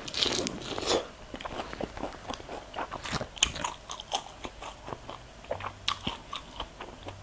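Crisp deep-fried chicharon bulaklak (pork mesentery) being bitten and chewed: a loud crunching bite in the first second, then rapid, steady crackly crunching as it is chewed.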